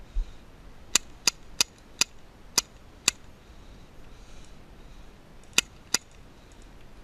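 Airsoft gun firing single shots as sharp cracks: six at uneven intervals over about two seconds, then two more in quick succession later on. A low thump comes just before the first shots.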